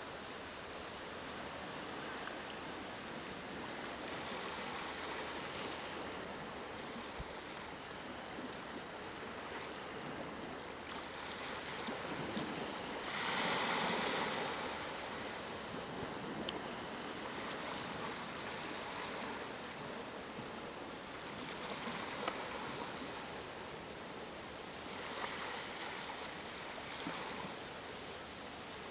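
Steady wash of small waves on a shore, with some wind, swelling louder for a second or two about halfway through; a single sharp tick a little after that.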